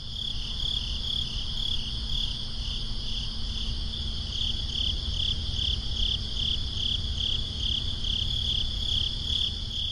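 Crickets chirping in steady, even pulses, a little over two a second, over a low rumble. It begins and cuts off abruptly.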